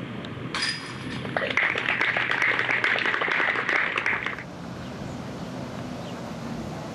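A putted disc strikes the metal chains of a disc golf basket with a ringing jangle, followed by about three seconds of spectator applause that stops abruptly.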